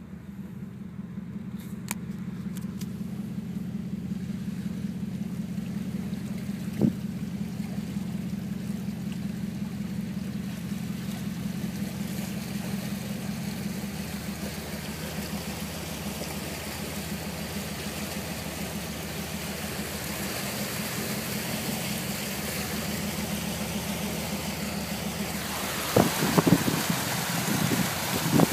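Vehicle engine idling steadily, heard from inside the cab. A few short, loud bursts of noise come near the end.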